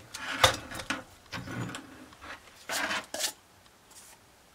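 Metal handling on a lathe: the cast-iron cylinder being worked free of the four-jaw chuck, with a knock about half a second in, then scraping and rubbing of metal on metal and two short scrapes about three seconds in.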